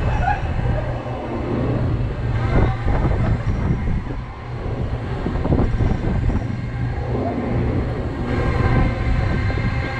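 SBF Visa Break Dance flat ride running at speed, heard from aboard a spinning car: a steady low rumble from the turning platform and car, with scattered rattles and clunks.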